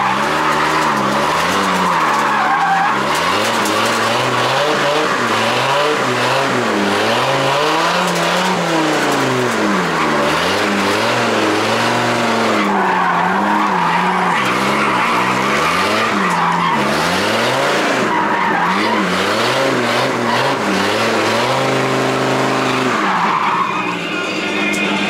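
Drift car's engine revving up and down over and over, with tyres squealing and skidding through the slides, heard from inside the caged cabin.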